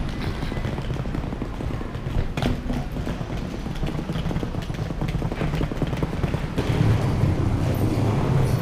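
Steady low rumbling background noise outside an airport terminal entrance, with a few sharp clicks. It grows a little louder about two-thirds of the way through.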